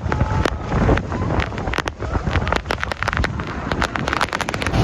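Wind buffeting the microphone over the steady rush of the American Falls at close range, with a rapid run of sharp crackles from about a second and a half in.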